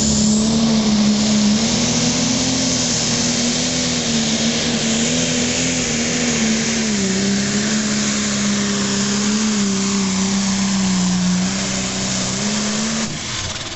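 Turbocharged diesel engine of a super stock pulling tractor running flat out under load while pulling the sled, pouring black smoke. Its steady engine note wavers, drops in pitch about halfway through, and cuts off near the end as the pull finishes.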